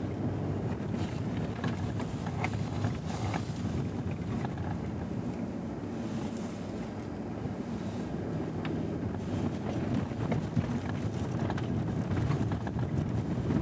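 Driving noise from a Suzuki Hustler kei car with a 660 cc three-cylinder turbo engine: steady tyre and engine noise on a rough winter road, with occasional small knocks and rattles over the bumps and some wind on the microphone.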